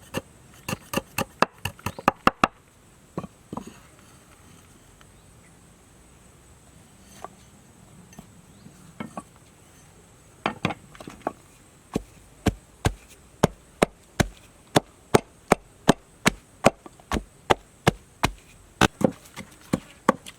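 A blade chopping against wood in repeated strokes. A quick run of chops opens, a pause with a few scattered strikes follows, and then steady chopping of about two or three blows a second runs from about halfway on.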